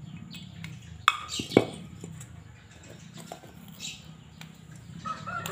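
Metal clicks and taps of a valve being handled in a Yamaha Mio Soul GT cylinder head during valve lapping: two sharp knocks about a second in, half a second apart, then a few lighter ticks, over a low steady hum.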